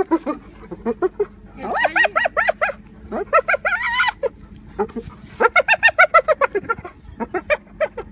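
Spotted hyena giggling: rapid runs of short, high, rising-and-falling whoops, in four bouts.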